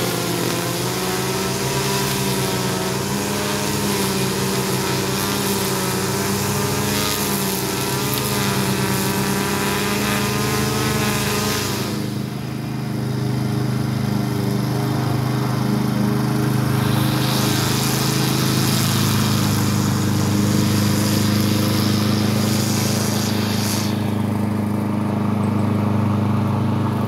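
Gas string trimmer used as an edger, its small engine running at high revs with a wavering pitch, over the steady running of a gas push lawn mower's engine. About halfway through, the trimmer's high wavering note drops away, leaving a steadier, lower engine drone.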